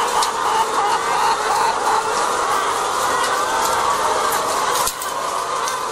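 A house full of caged laying hens clucking and calling together in a dense, overlapping chorus, with sharp clicks scattered through it. The level drops a little about five seconds in.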